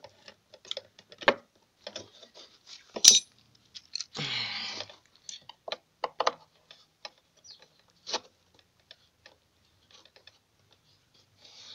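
Scattered metal clicks and clinks of small parts being handled and fitted onto the chuck of a drill used as a homemade lathe, with a short scrape about four seconds in.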